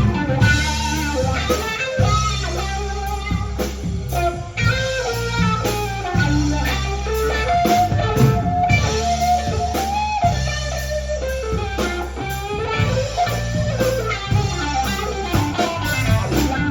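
Blues band playing an instrumental break. An electric guitar plays a lead line with bent notes over bass guitar and drums.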